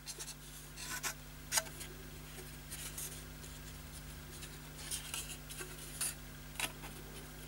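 Faint handling noise from a plastic radio back cover being turned over in the hand: a few scattered light clicks and rubs, over a low steady hum.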